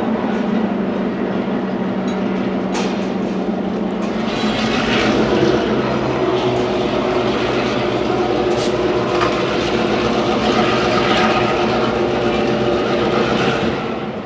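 Diesel locomotive engine running as the train makes switching moves; its pitch shifts about four to five seconds in as the throttle changes. Strong wind buffets the microphone throughout.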